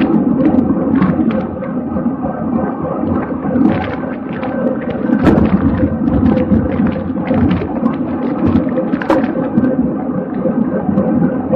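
Wind buffeting the microphone of a camera riding in a bicycle road race: a loud, steady rumble, with a faint constant hum and scattered sharp clicks.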